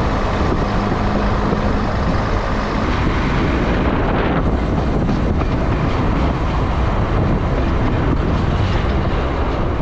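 BR Class 117 diesel multiple unit running along the line, heard from an open carriage window: a steady rush of wind and running noise.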